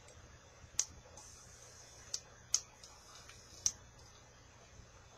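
About five short, sharp clicks spread over roughly three seconds, from small hard parts being handled while a rebuildable atomizer's coil and mesh wick are worked on.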